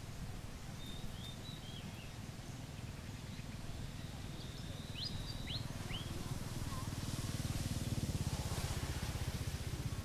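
Steady low outdoor background rumble, swelling a little about seven seconds in, with a few faint, thin, high bird whistles about a second in and again around five seconds in.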